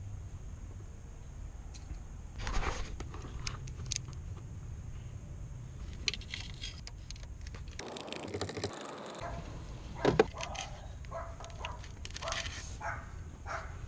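Hand tools working the small bolts of an intake manifold runner control valve: scattered metal clinks and scrapes of a socket wrench, with one sharper knock about ten seconds in, over a low steady hum.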